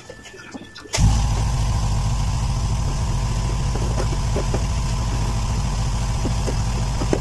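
A steady motor noise that starts abruptly about a second in and holds an even level.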